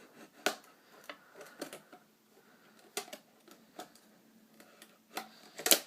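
Irregular clicks and short scrapes of a pocket knife working at the seal of a small boxed package, with the sharpest clicks near the end.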